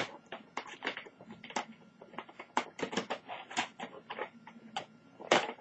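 Irregular plastic clicks and rattles as a laptop keyboard is worked loose, lifted and slid forward out of its deck, its keys clattering.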